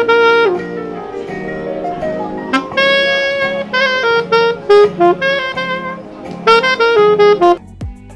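Saxophone played live by a street musician, a jazzy melody of separate notes over a steady low accompaniment. Near the end it cuts abruptly to different, quieter music.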